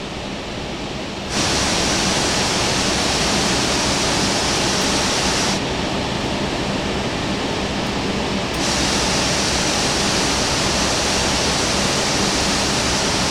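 Steady, loud rushing hiss of an Airbus A380 taxiing. It turns abruptly brighter about a second in, duller for about three seconds in the middle, then brighter again.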